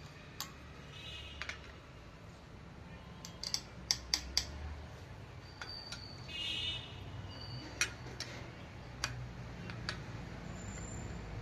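Light metallic clicks and taps of bolts and hand tools on an engine's camshaft cover as its bolts are put in, scattered, with a quick run of several clicks about three to four seconds in. A low steady hum runs underneath.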